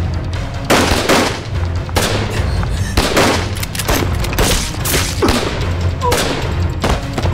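Gunfire from pistols and rifles in a shootout, a dozen or so sharp shots at irregular intervals, one or two a second, over a low, steady music drone.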